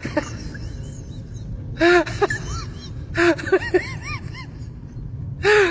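An animal giving short, rising-and-falling calls in three clusters, about two seconds, three seconds and five and a half seconds in, over a steady low rumble.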